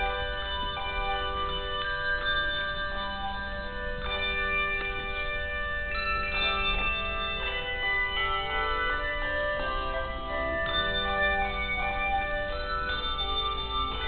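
Handbell choir playing: many bells struck and left ringing in overlapping chords, with new notes coming in every second or two.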